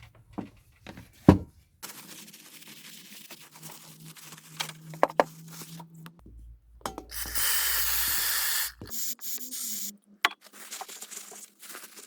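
Aerosol carb cleaner sprayed into a motorcycle carburettor's passages in one loud hiss lasting about a second and a half, about seven seconds in. The spray flushes dirt out of the jets and holes. Small clicks and knocks of handling the parts come before it.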